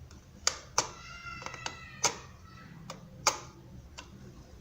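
Sharp plastic clicks from the joysticks of an E59 micro foldable drone's remote controller as they are pushed and let go, four clicks spread over a few seconds; the left stick is the one the owner finds faulty.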